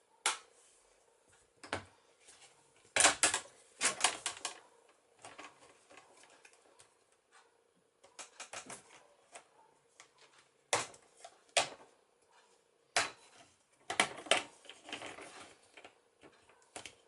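Plastic screen bezel of a Dell Alienware laptop being pried off with a spudger: irregular sharp clicks and short rattling bursts as the bezel's clips pop loose around the edges.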